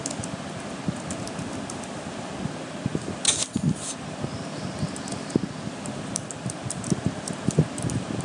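Computer keyboard keys clicking in scattered strokes as a terminal command is typed, with a louder pair of clicks a little over three seconds in, over a steady fan-like hum.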